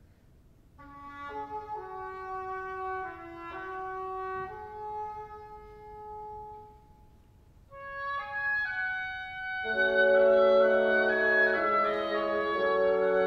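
Symphony orchestra playing: a melody in separate held notes enters about a second in, pauses briefly past the middle, then more instruments join and it grows much louder near the end.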